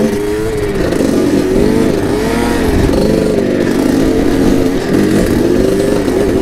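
Kawasaki KDX220 two-stroke dirt bike engine pulling at low revs through soft sand, its pitch rising and falling again and again as the throttle is opened and eased off.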